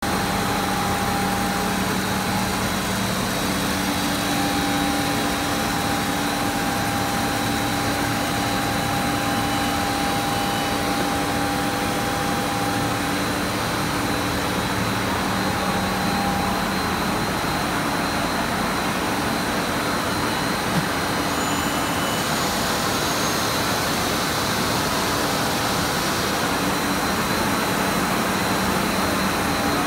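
Three-layer blown film extrusion line running at production speed: a steady machine hum with several held tones over a constant rush of air.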